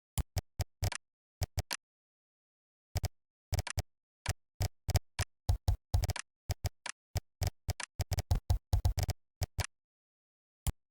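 Computer keyboard typing: irregular runs of key clicks in short bursts, with pauses of about a second between them and a dense run through the middle and latter part.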